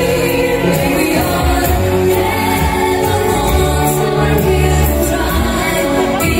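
Loud pop song with singing and a steady beat.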